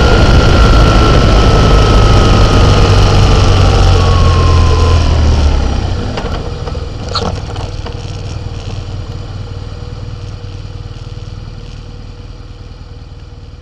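Wind and road noise from a vehicle rolling downhill, with a high whine sliding down in pitch as it slows. About six seconds in, the noise drops sharply to a quieter steady hum that keeps fading, with a brief click about a second later.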